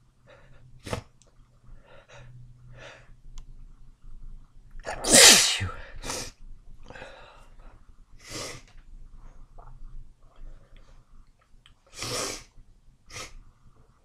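A person sneezing wet sneezes repeatedly, with breathy inhales between them. The loudest sneeze comes about five seconds in, and shorter sneezes follow, two of them strong near the end.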